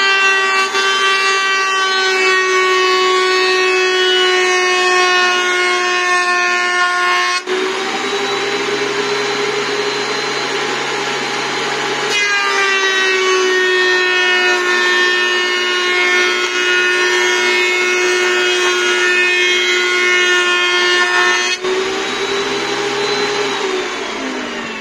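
WEN 6552T 13-inch three-blade benchtop thickness planer running and planing a rough-sawn poplar board in two passes: a loud, high whine, a real screamer, with a short change in the sound between the passes. The motor winds down in falling pitch near the end.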